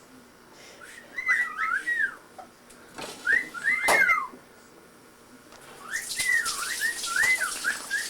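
Whistling in short phrases of quick notes that swoop up and down, with pauses between phrases. From about six seconds in, water runs from a kitchen tap under it.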